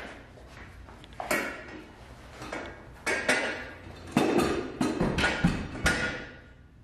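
An adjustable weight bench (Rep AB-3100) is tipped upright and hung on a metal wall mount, giving a run of metal clanks and thuds. The loudest cluster comes about four to six seconds in.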